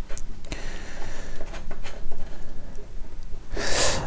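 Handling noise from a small petrol engine being worked over on a wooden table: scattered light clicks and knocks, a faint scrape, and a short rush of noise near the end.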